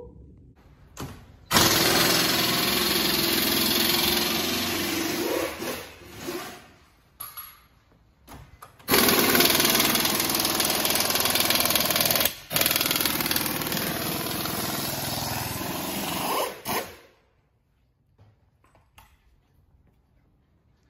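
A power tool runs hard in two long stretches, one of about three seconds and one of about eight, with a few short clicks and knocks in between. It stops about three quarters of the way through.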